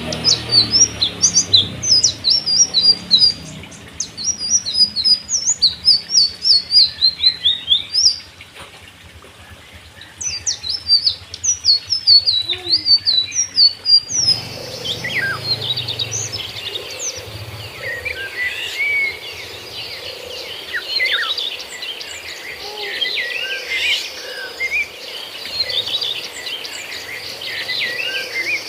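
Small cage birds in an aviary chirping: quick, high, repeated chirps at first, then about halfway through a busier chorus of many birds calling over one another.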